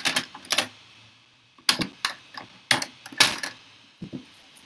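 A handful of sharp metallic clicks and clacks, spread irregularly over a few seconds, as small metal stamping-platform bar magnets knock together while being picked up.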